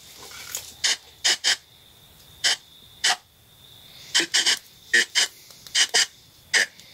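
About a dozen sharp, irregular clicks and ticks over a faint, steady high-pitched whine.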